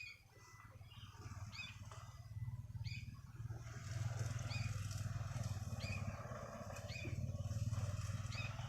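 Sooty-headed bulbul (kutilang) giving short, rising chirps about once a second, over a low steady rumble that swells during the first few seconds.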